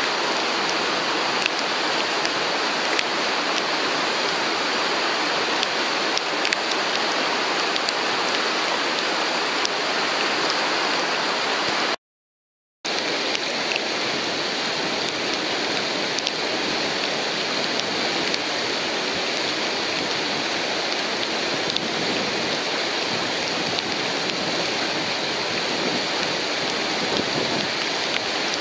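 Whitewater of a river standing wave rushing steadily, a dense hiss of breaking water. The sound drops out completely for under a second about twelve seconds in.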